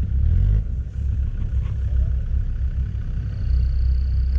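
Land Rover Discovery TD5's diesel engine working the truck through deep snow, heard as a low, steady rumble.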